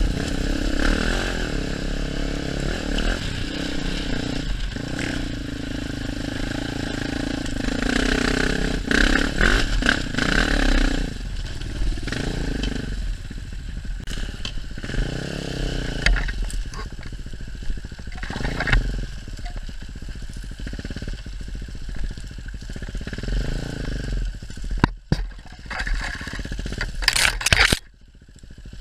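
KTM enduro motorcycle engine, heard from the rider's helmet, pulling at fairly steady revs for about the first ten seconds, then revved up and down in short bursts of throttle over rough trail. A few sharp knocks come near the end as the bike hits the ground.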